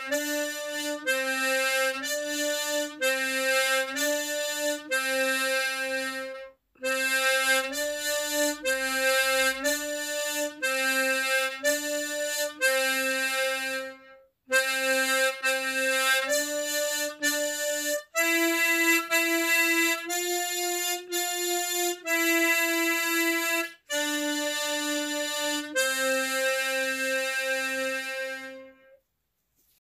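Harmonica playing a simple tune in octave technique, each note sounded as a pair an octave apart. The tune runs in phrases with brief breaks about 7 and 14 seconds in and ends on a held low C shortly before the end.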